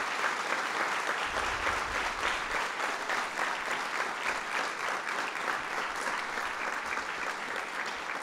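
Audience applauding steadily in a large room, a dense patter of many hands clapping.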